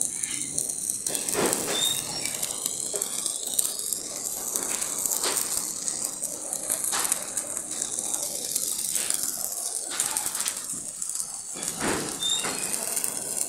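Stick (manual arc) welding of iron sheet: the arc crackles and hisses steadily, with a few sharper pops.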